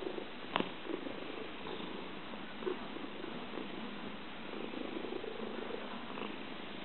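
Domestic cat purring steadily, with a sharp click about half a second in.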